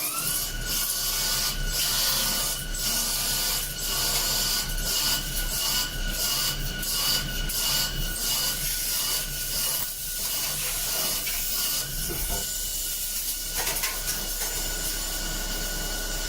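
CNC machine spindle whining at a steady high pitch while the cutter scrapes through the workpiece in repeated strokes, about two a second.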